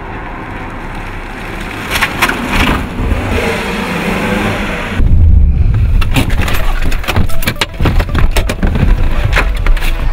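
Car sounds: a noisy street stretch with a few knocks, then from about five seconds in the low rumble of a car heard from inside its cabin. A run of sharp clicks and knocks follows near the end as the car's door is opened.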